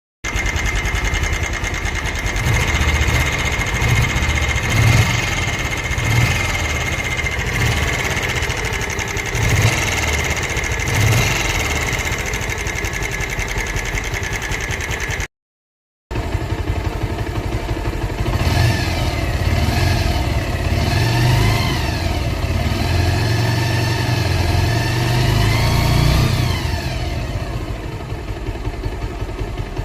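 Bajaj Pulsar motorcycle's single-cylinder engine running and being revved in two separate takes, split by a brief silence about halfway. The first take has a steady high whine over the engine and small blips of throttle; the second has several revs that rise and fall. The two are set side by side as a bad-sounding and a good-sounding engine.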